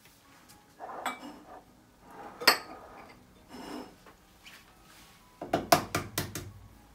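Glass mixing bowl and eggs handled on a kitchen counter: separate knocks and clinks, the loudest a sharp ringing glass clink about two and a half seconds in, then a quick cluster of knocks near the end.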